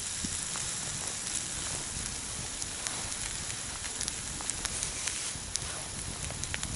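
Sliced vegetables and shiitake mushrooms sizzling in hot oil in a small frying pan, a steady hiss with scattered sharp crackles.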